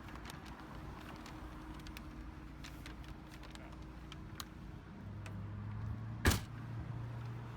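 Faint low hum of a car with scattered light ticks; the hum grows stronger about five seconds in, and a single sharp thump, the loudest sound, lands just after six seconds.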